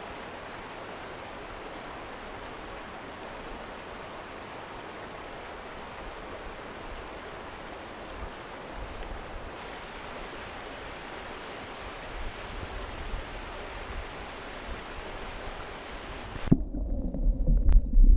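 Shallow stony river running with a steady rush of water. About sixteen seconds in the microphone goes under the water and the sound cuts suddenly to a muffled, low, uneven rumble and slosh.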